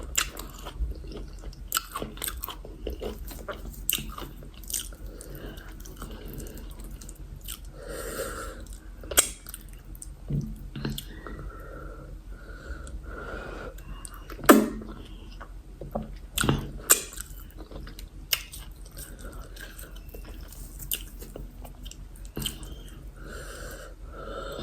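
Close-miked chewing of a meal of yam fufu and egusi soup: wet mouth sounds with scattered sharp smacks and clicks, the loudest about halfway through.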